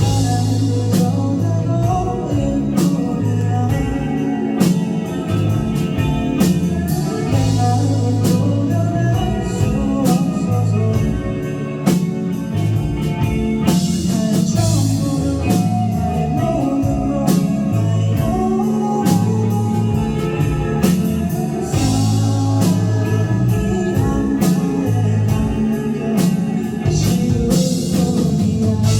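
Live rock band playing: drum kit, bass and electric guitars.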